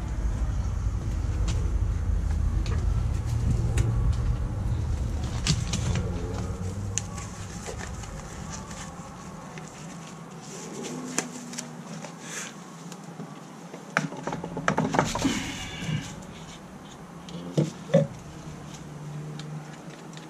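A low rumble that fades out after about eight seconds, then scattered light clicks and knocks, with a busier cluster and two sharper knocks near the end, as PVC pipe fittings are handled.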